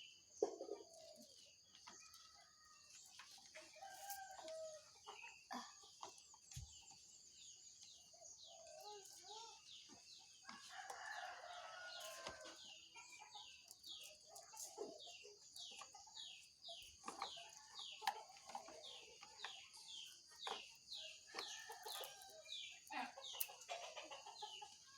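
Chickens: hens clucking and a rooster crowing, with a long run of short, high, falling peeps about twice a second in the second half, over a steady high hiss.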